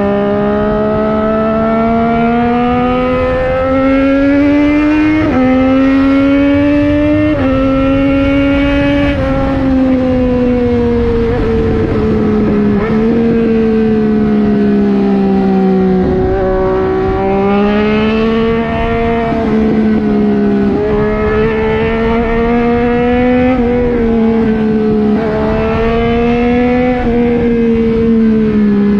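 Motorcycle engine heard from on the bike at speed, pulling up through the gears with quick upshifts every couple of seconds in the first nine seconds, then rising and falling with the throttle through bends, over wind rush.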